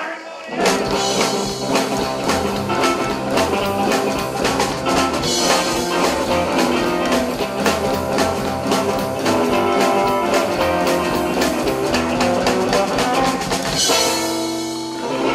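Rockabilly band playing live: slapped upright bass keeping a driving beat under acoustic and electric guitars. Near the end the beat stops and a held chord rings out as the song ends.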